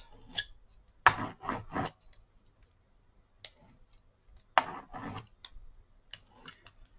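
Metal-bladed paint scraper dragged over acrylic paint on paper: scratchy scraping strokes in two short runs, about a second in and again about four and a half seconds in.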